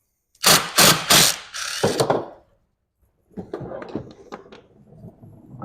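Impact gun with an 8 mm socket rattling in three short bursts and then a longer one, taking out the water pump bolts on a snowmobile engine. Quieter ratcheting clicks and rattles follow.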